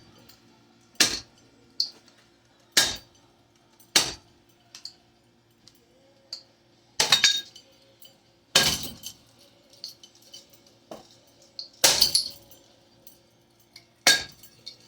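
About eight sharp clanking, clinking hits at irregular intervals, one to three seconds apart, each ringing briefly: a ceiling fan being struck and broken apart.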